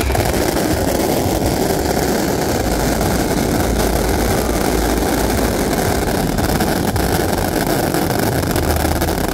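Ground-fired fountain fireworks (gerbs) jetting sparks with a steady, loud rushing hiss.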